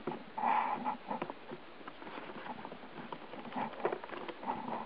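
Light scratching, rustling and tapping against a cardboard shoebox: scattered small clicks, with a denser scratchy burst about half a second in and again near the end.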